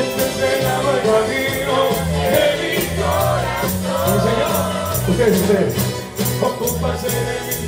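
A man singing into a microphone over a recorded backing track with a steady beat and bass line.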